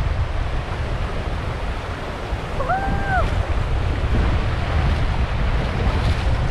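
Wind buffeting the microphone over the steady rush of river water. About three seconds in, a short held tone lasts a little over half a second.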